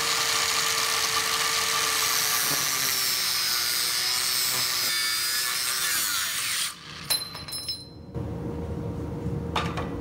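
Electric angle grinder cutting into a rusty steel bracket, its motor pitch sagging as the wheel bites into the metal. The grinder stops about two-thirds of the way through, followed by a sharp knock and handling noises.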